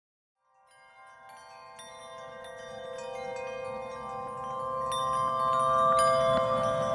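Background music of chime- and bell-like tinkling notes over held tones, fading in from silence about half a second in and growing steadily louder.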